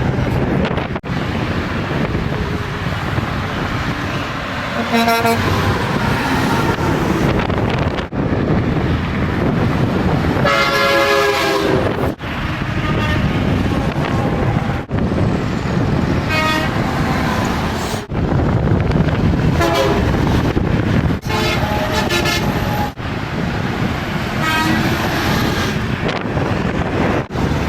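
Semi-truck air horns honking several times, each a short pitched blast, over the steady rushing noise of heavy highway traffic. The loudest horn comes about eleven seconds in.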